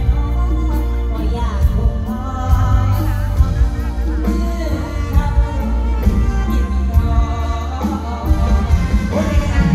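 Live band music over a large PA with heavy steady bass, and a woman singing through a headset microphone.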